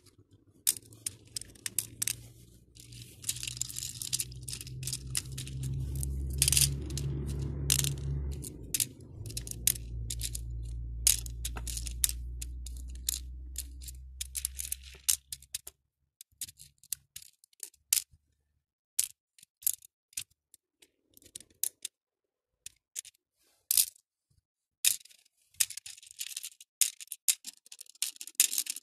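Plastic acrylic beads clicking and rattling against each other and the clear plastic compartment tray as fingers pick through and move them, in many quick separate clicks with busier rattling stretches. A steady low rumble runs underneath for about the first fifteen seconds, then stops.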